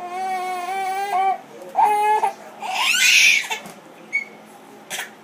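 Infant crying in a whiny, drawn-out way: a long wail, a shorter one, then a loud high squeal about three seconds in. The adult with her takes the cries for fake crying.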